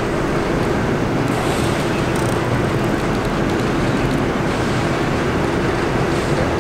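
R42 New York City subway train at an elevated station: a steady rumble and hum with a constant mid-pitched tone, and faint brief hisses about one and two seconds in.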